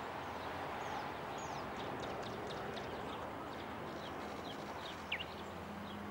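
Small birds chirping, a quick run of short falling notes with one louder chirp about five seconds in, over a steady background hiss.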